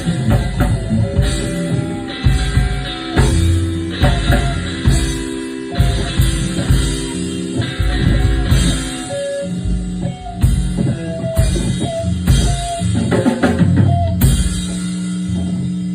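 Live rock band playing an instrumental outro on drum kit, electric guitar and bass, with the drums hitting hard; about fourteen seconds in the band lands on a final chord that rings on.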